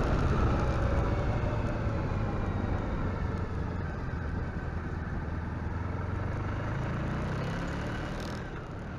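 Honda ST1100 motorcycle's V4 engine running steadily at low speed under a haze of wind and road noise, the sound easing off and growing quieter toward the end.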